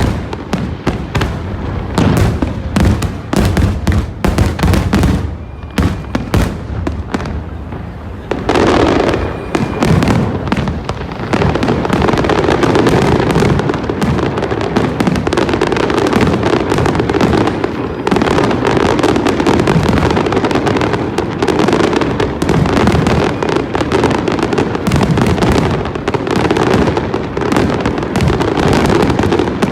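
Fireworks display: a rapid string of bangs and crackles that thickens, about eight seconds in, into a dense, unbroken barrage of booms and crackling.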